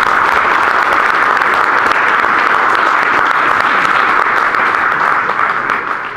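Audience applauding, a steady clatter of many hands clapping that dies away near the end.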